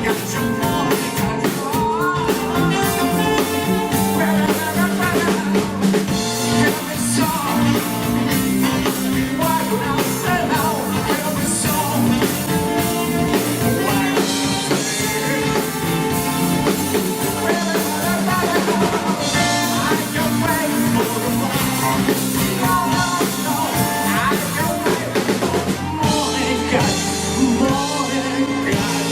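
Live band playing a song with a drum kit, amplified through a PA.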